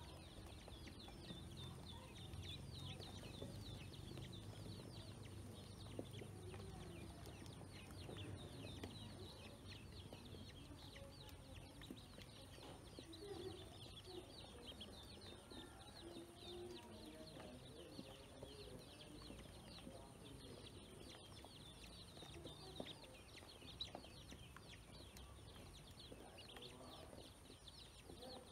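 A brood of domestic ducklings peeping softly and continuously, many short high calls overlapping, while they feed.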